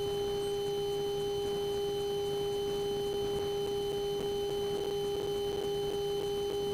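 Steady electrical whine in the small plane's cockpit audio feed: one unchanging tone with a fainter higher overtone, over a faint low engine hum.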